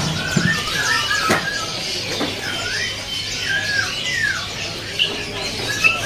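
Many caged songbirds chirping and twittering together. One bird stands out with a run of clear whistled notes that loop up and down, repeated every second or so.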